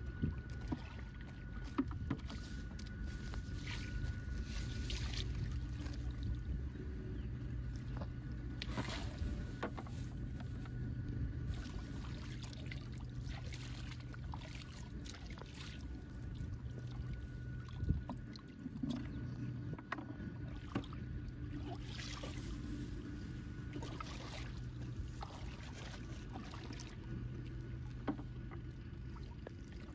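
Shallow muddy water sloshing and splashing now and then as hands grope through a ditch bed, with sharper splashes about nine and eighteen seconds in, over a steady low hum.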